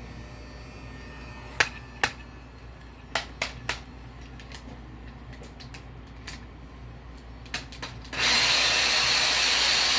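A handful of sharp clicks and taps, then a heat gun starts up about eight seconds in and runs with a steady rushing blow and a faint high whine. The heat gun is failing and cutting out, and this is it coming back on.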